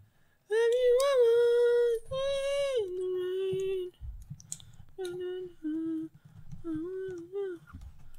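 A voice singing a slow wordless tune in long, high held notes that slide between pitches.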